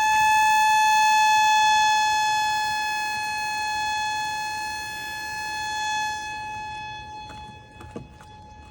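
Etsy tornado siren sounding one steady high tone that holds its pitch, loudest in the first couple of seconds, then fading, swelling again and dropping lower while still running. A short click comes near the end.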